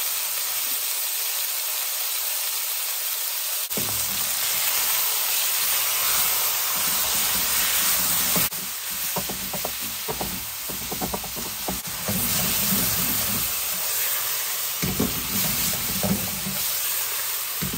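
Ground beef sizzling in a hot carbon steel wok. From about four seconds in, wooden spatulas scrape and knock against the wok as the meat is broken up and stirred.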